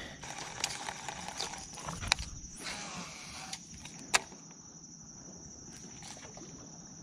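Quiet sounds of a baitcasting rod and reel casting a topwater popper: faint handling and line noise, with two sharp clicks about two and four seconds in. A steady high-pitched insect buzz runs behind it.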